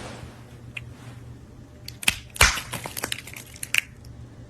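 Scattered clicks and crunching, the loudest crunch a little over two seconds in, with a few more sharp clicks about three and a half seconds in.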